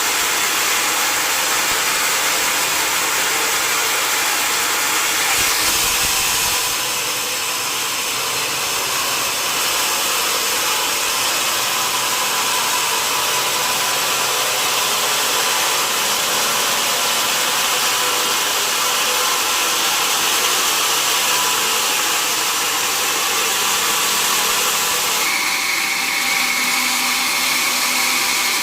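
Sawmill saw cutting a mahogany log: a steady, hissing machine noise that shifts in character about six seconds in, with a steady high whine joining near the end.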